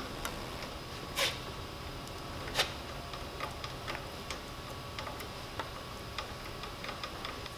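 Light clicks and ticks of a rubber grease hose being worked onto a barbed fitting by hand, over a steady faint room hum; two slightly sharper clicks come about a second in and again about two and a half seconds in.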